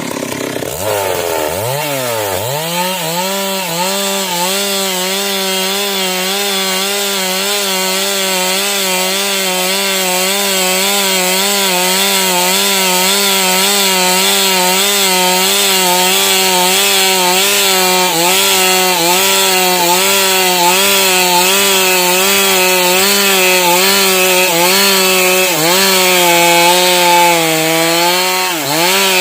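Two-stroke chainsaw revving up about two seconds in, then running at high revs while ripping a log lengthwise along the grain, its pitch wavering slightly under load. The revs dip briefly twice near the end.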